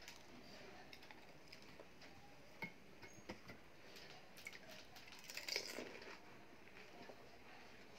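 Quiet sounds of eating pani puri: a few faint crunches and clicks, with a brief louder cluster of crackly noise a little past the middle as the next puri is handled and dipped into the steel bowl of pani.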